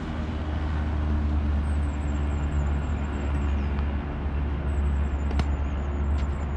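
Steady low rumbling background noise, with a faint wavering high whistle in two stretches and one sharp tap about five and a half seconds in.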